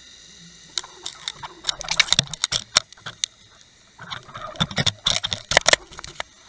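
Bursts of sharp clicks and knocks, heard through an underwater camera housing as the camera and bucktail jig rig are jostled while a summer flounder strikes the bucktail. The clicking comes in two flurries, one starting about a second in and another about four seconds in.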